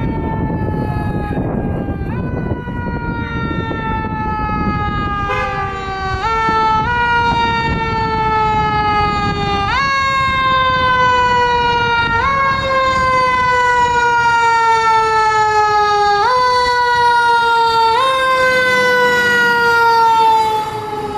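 Siren of a 2019 Spartan Metro Star fire engine running while responding. Its pitch jumps up quickly and then slides slowly down again, about every two seconds, and it grows louder as the truck approaches. A low rumble sits underneath in the first half.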